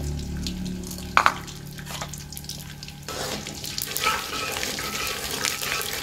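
Gond (edible gum) frying in hot desi ghee in an aluminium karahi: a steady sizzle with many small pops as the gum puffs up, and a metal spoon stirring and scraping against the pan in the second half. A sharp double knock about a second in.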